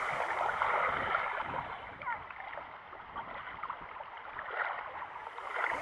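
Water lapping and sloshing at the water's edge, a little louder in the first two seconds.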